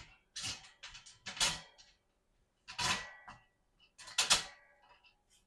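Plant stand parts being handled and screwed together: a run of short scrapes, clicks and clatters, about five of them, the loudest about a second and a half in and again near the four-second mark.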